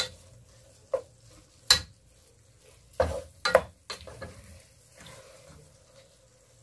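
Wooden spatula stirring vegetables and tofu in a dark-coated wok, with about six sharp knocks and scrapes against the pan in the first four seconds and quieter stirring after that. The dish sizzles faintly underneath, its sauce cooked down.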